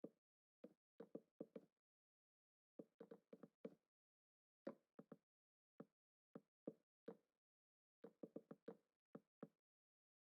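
Faint, irregular knocking: short sharp knocks, some single and many in quick runs of three to five, with silent gaps between.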